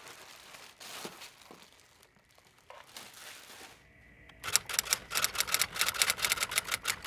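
Packaging crinkling and rustling as a boxed airbrush compressor is unpacked and handled. About two-thirds of the way in, a fast, steady run of sharp clicks begins and grows louder than the rustling.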